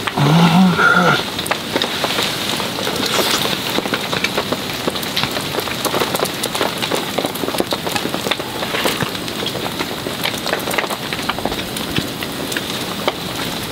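Heavy rain pattering steadily on the tent fabric, a dense patter of fine drops. A man's short hum sounds in the first second.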